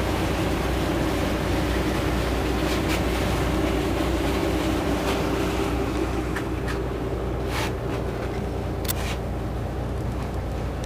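Engines of the TP Marine K-13 boat idling steadily with a low hum and a steady drone, heard more muffled in the second half, with a few light clicks and knocks.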